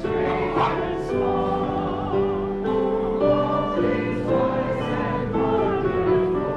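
A choir singing a hymn, slow held notes in several voices.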